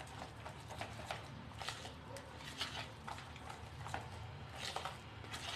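A metal utensil stirring a thick gram-flour and yogurt batter in a bowl: soft, irregular clicks and scrapes against the bowl, over a low steady hum.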